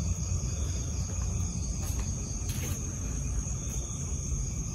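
Crickets chirring steadily in one continuous high tone, over a low rumble of handling noise from a handheld phone.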